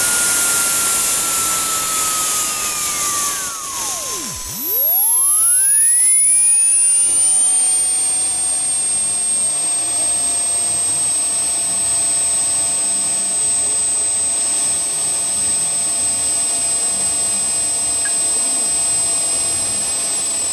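JetJoe 1400 model jet turbine spooling down from high power, its high whine falling in pitch over the first eight or nine seconds. It then idles steadily at about 40,000 rpm.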